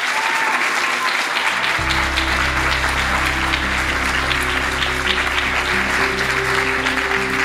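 Audience applauding, with end music coming in about two seconds in under the clapping, a steady low bass and sustained tones.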